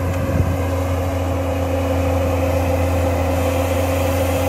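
Bobcat compact track loader's diesel engine running steadily under load as the machine pushes its bucket against a large rock, with a steady whine at one pitch above the engine drone. A small knock sounds about half a second in.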